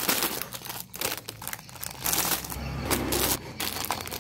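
Clear plastic bags around squishy toys crinkling and crackling in irregular bursts as they are handled and packed into a plastic tub. A low rumble joins in for about a second midway.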